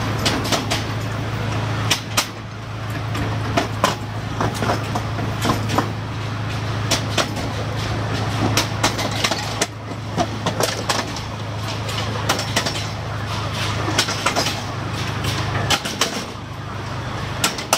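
Rail vehicle running along the track: a steady low engine hum with frequent sharp, irregular clicks and knocks of wheels and running gear on the rails. The hum weakens a little near the end.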